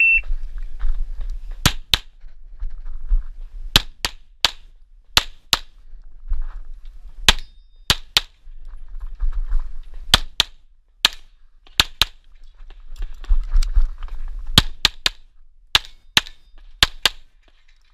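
A shot timer's short beep sounds, then a 9x19 Tanfoglio Stock II pistol fires about twenty shots, mostly in quick pairs and triplets with pauses of a second or two between groups, and a low rumble between the shots.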